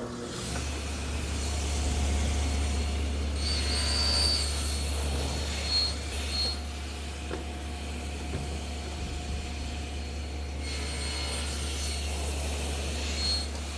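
Table saw starting up and running, cutting half-inch-deep shoulder cuts across the edges of wooden stock. The motor starts with a steady low hum, and two passes through the wood, about three and a half seconds in and about eleven seconds in, each add a higher whine of the blade in the cut.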